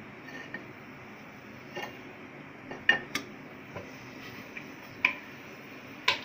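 Sharp metallic clinks and knocks from an empty aluminium pressure cooker pot being handled on the stove. There are about half a dozen separate clinks, the loudest in the second half.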